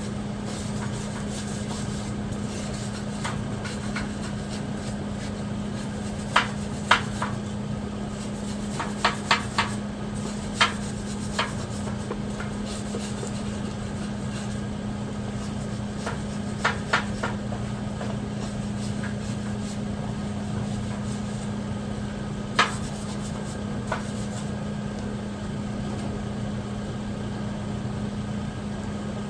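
Steel parts being handled and set in place: scattered sharp metal clinks and knocks, some in quick pairs and threes, over a steady hum.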